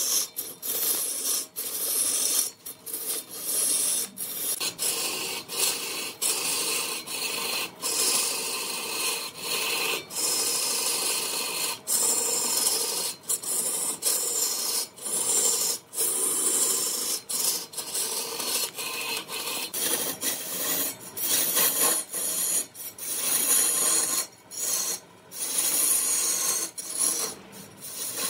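Abrasive scraping on wood in repeated strokes, each lasting from about half a second to two seconds, broken by short gaps.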